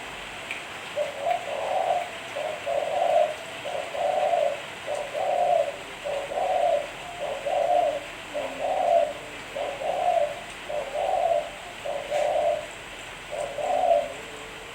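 Spotted dove (tekukur) cooing: a steady series of low, soft coo notes, roughly one a second.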